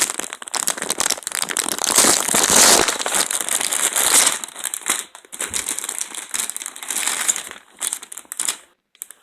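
Packaging crinkling and rustling as it is handled, loudest in the first half, then in shorter patches until it stops just before the end.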